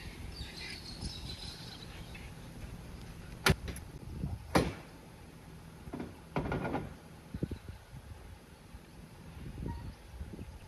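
Two sharp, loud knocks about a second apart, followed a couple of seconds later by a brief rattling scrape, over a steady low rumble.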